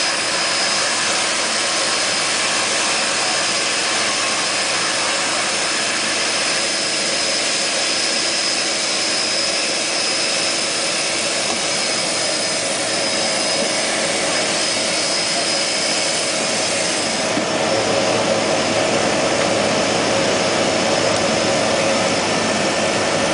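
Twin Otter seaplane's turboprop engine and propeller running steadily, heard from inside the cabin, with a steady high turbine whine over the propeller noise. About seventeen seconds in the sound grows a little louder and brighter.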